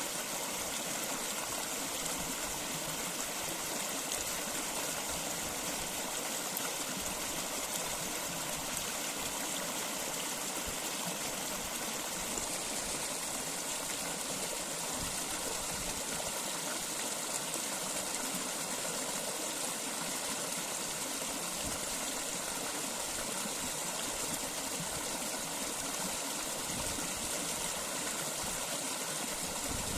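Running water flowing steadily, a constant even rush with no breaks.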